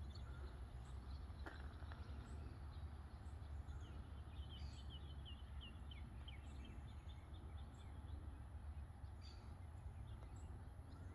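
Songbirds chirping and calling over a steady low rumble, with short high notes about once a second and a quick run of chirps a little before the middle.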